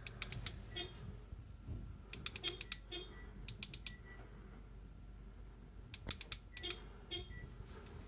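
Light metallic clicking and jingling in four short clusters: the first right at the start, two more between about two and four seconds in, and the last around six to seven seconds in.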